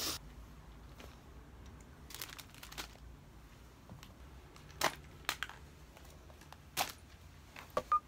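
Quiet handling sounds: a few soft rustles and light taps, spaced a second or two apart, as small items are laid out on a duvet, over faint room tone.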